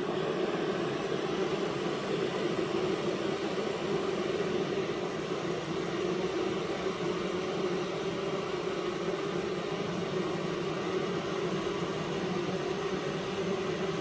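A honeybee colony humming steadily at the hive entrance: many bees fanning their wings to dry the collected nectar, driving the moisture out of it. A low, even hum with no breaks.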